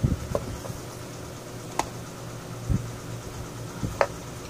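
About half a dozen short clicks and light knocks from an electric fan's rotary switch and its housing being turned and handled during a continuity check with an analog multimeter. The sharpest clicks come about two seconds in and near the end, over a steady low hum.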